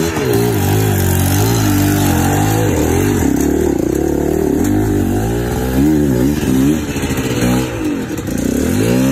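Dirt bike engine revving up and dropping back again and again while it is ridden over rocks and up a steep, loose climb.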